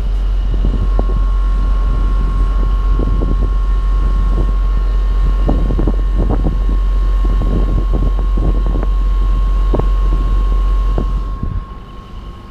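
Rooftop air conditioner unit running with a steady whine, under heavy wind rumble on the microphone that drops away shortly before the end.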